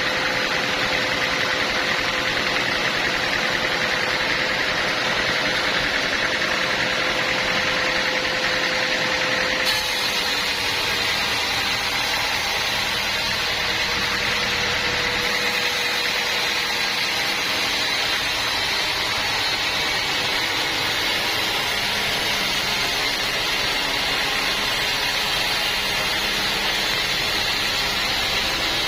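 Portable sawmill running steadily: its engine and saw make a constant loud noise with a faint steady hum. The sound changes abruptly about ten seconds in.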